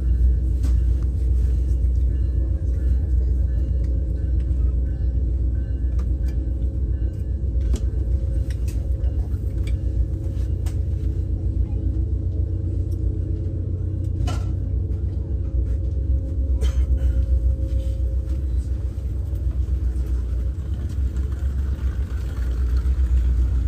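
Steady low rumble of a moving vehicle, with a few faint clicks scattered through it.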